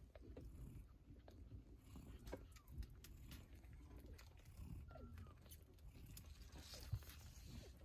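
Newborn Persian kittens suckling: faint, irregular wet smacking and clicking as they nurse, with a brief tiny squeak about five seconds in.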